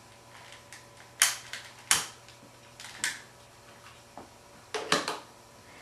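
A long-nosed utility lighter clicking a few times as it lights the wick of an alcohol lamp, the sharp clicks about a second apart. A close pair of light knocks follows near the end.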